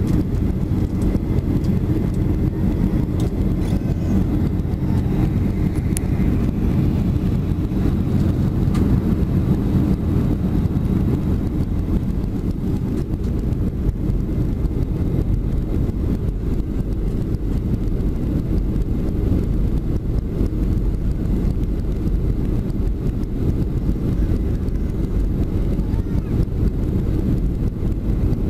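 Steady low roar of a Boeing 737-400's CFM56 turbofan engines and rushing airflow, heard from inside the passenger cabin in flight.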